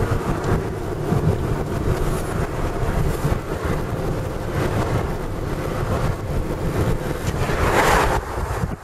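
Wind buffeting the microphone: a steady low rumble, with a louder rush of noise about eight seconds in.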